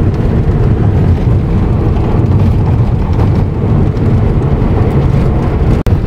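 Steady road and engine rumble inside a moving car's cabin, with no speech. The sound cuts out for an instant near the end.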